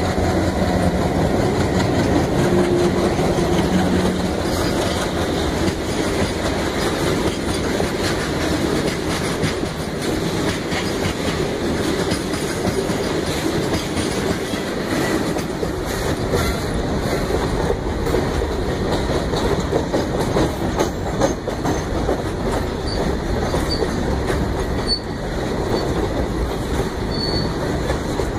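Freight train passing close by: the diesel locomotives' engines go by in the first few seconds, then a long rake of open goods wagons rolls past with a steady rumble and wheel clatter, and a few brief high wheel squeals near the end.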